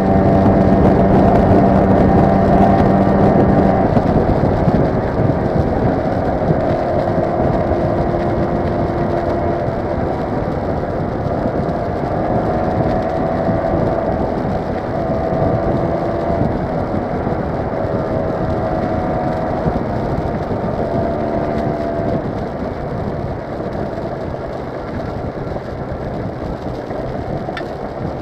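Motor scooter engine running at road speed under a steady rush of wind and road noise, its pitch stepping up and down every few seconds as the throttle changes. The overall sound slowly gets quieter across the stretch.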